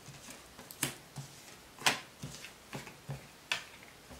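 Tarot cards being handled and laid down on a table: a series of light, sharp snaps and taps, the clearest about a second in, two seconds in and three and a half seconds in.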